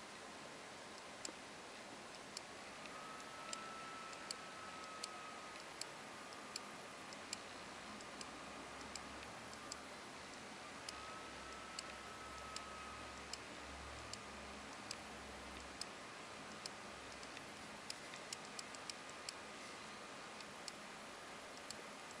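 Small, sharp mechanical clicks from a Cartier Pasha automatic watch as its crown is turned to quick-set the date, the date disc jumping about once a second with a quick run of clicks near the end, over a faint hiss.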